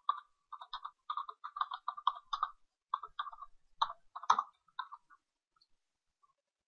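Computer keyboard typing: a run of quick keystrokes in short bursts, the loudest about four seconds in, stopping after about five seconds.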